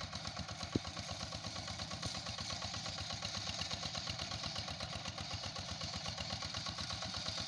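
Walk-behind two-wheel hand tractor's single-cylinder diesel engine running steadily with a rapid, even chugging as it tills a rice paddy. A single sharp click sounds just under a second in.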